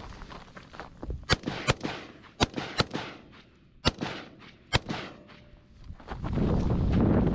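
Rifle shots on an open range: six single shots, mostly in quick pairs, from about a second in to just under five seconds in. A steady low rumble rises near the end.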